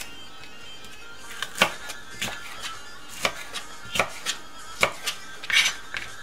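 Kitchen knife chopping bell pepper into cubes on a plastic cutting board: about ten irregular sharp strikes, with a quick cluster of cuts near the end.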